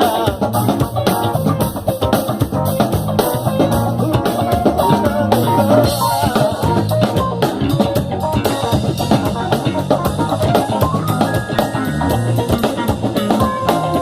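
Live band playing an instrumental passage of a Christian pop-rock song: drum kit keeping a steady beat with electric guitar, bass and keyboards, with a short run of held notes in the middle and a rising run near the end.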